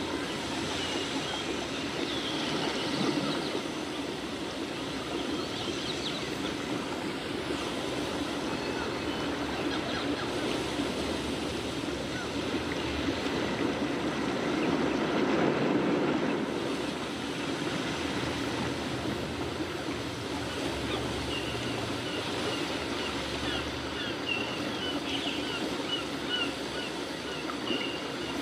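Pencil scratching on paper in short drawing strokes, with a row of quick repeated dashes near the end, over a steady background noise that swells briefly about halfway through.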